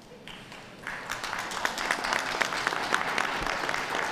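Audience applause: it starts about a second in, a crowd clapping steadily.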